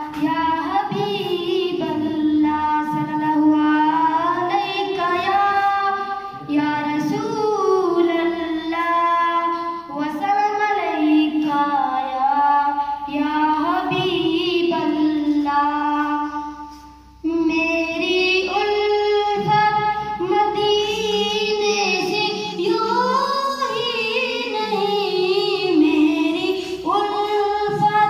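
A boy singing solo, unaccompanied, in long phrases of held notes with wavering pitch. There is a short break about seventeen seconds in.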